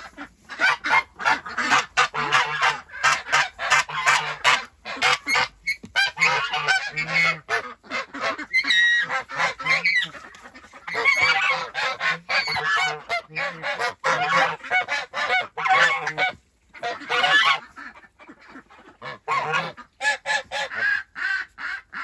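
Domestic geese honking over and over in a long, dense run of calls, which thins out to scattered honks after about sixteen seconds.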